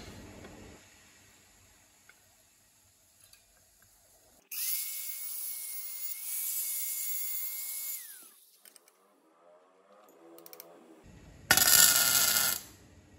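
An angle grinder grinds a steel tube for about three and a half seconds over a steady high whine, then spins down with a falling whine when released. A few seconds later a MIG welder crackles for about a second, tack-welding the bent steel tube onto the frame.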